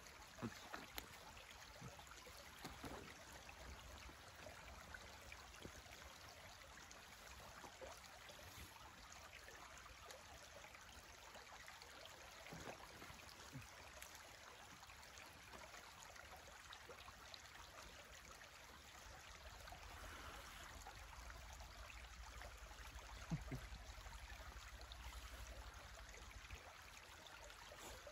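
Faint, steady babble of a shallow stream, with a few soft clicks and a brief knock about 23 seconds in.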